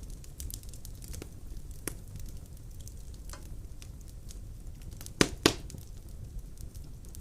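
Bioethanol fireplace flame burning with a steady low rumble and scattered faint ticks, with two sharper clicks about five seconds in.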